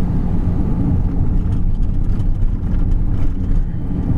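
Delivery van driving along a wet road, heard from inside the cab: a steady low drone of engine and tyre noise.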